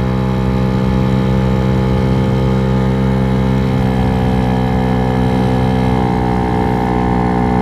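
GY6 scooter engine, an 88cc big bore four-stroke single with a Polini variator in the CVT, running at steady high revs while being ridden. Its pitch steps up a little twice, about four seconds and six seconds in.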